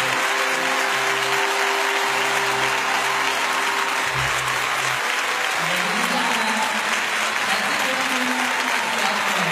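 Large arena crowd applauding steadily, with the closing music still sounding under it for about the first half.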